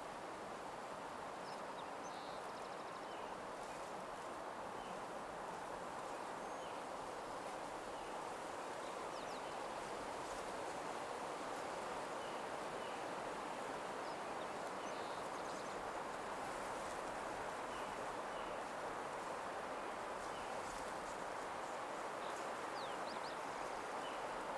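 Nature soundscape: a steady soft rushing background noise with faint, short songbird chirps scattered through it.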